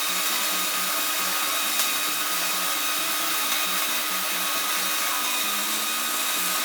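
Arc welding on a steel fabrication: a steady, even crackling hiss from the arc that starts and stops abruptly, one continuous bead several seconds long.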